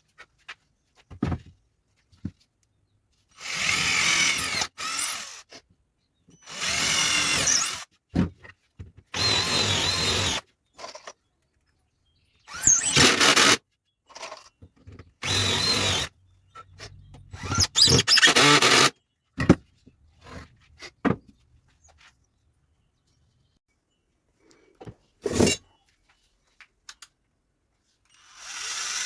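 Power drill running in short bursts of one to two seconds, about six times, with clicks and knocks in the pauses between.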